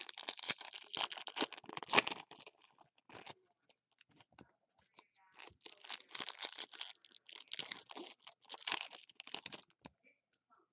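Foil wrappers of 2016 Bowman's Best baseball card packs being torn open and crinkled in the hands. The crackling comes in two bouts: one of about three seconds, and a second starting about five seconds in and running about four seconds.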